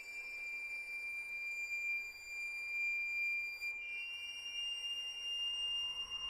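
Ambient electronic music: a high, pure sustained tone with faint overtones that steps down in pitch at the start and back up about four seconds in, with a fainter tone beginning to rise near the end.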